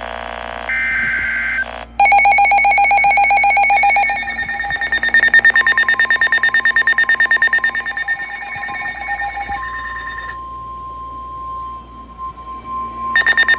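NOAA Weather Radio warning alert. After a few brief tones, a weather radio's loud, rapidly pulsing alarm beeps sound, with the steady single 1050 Hz warning tone joining partway through. The beeping stops about ten seconds in, leaving the tone on its own, then starts again near the end.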